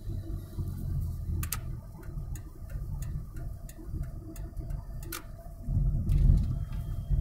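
Road and engine rumble inside a moving car's cabin, with sharp clicks at an even pace, about one every 0.7 seconds. The rumble grows louder near the end.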